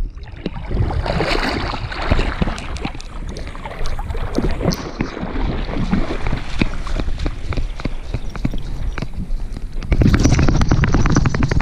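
Golden retriever swimming, water sloshing and gurgling against the camera on its back, then splashing out of the water and running through grass. About ten seconds in the sound grows louder, with a fast run of rhythmic strokes.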